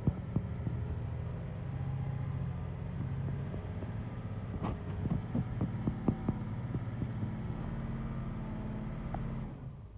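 Diesel box truck's engine running while it drives, heard from inside the cab as a steady low drone, with scattered knocks and rattles about halfway through. The drone falls away just before the end.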